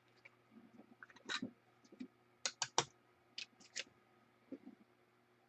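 Faint, scattered clicks and short rustles of hands handling plastic, as a trading card is fitted into a one-touch card holder.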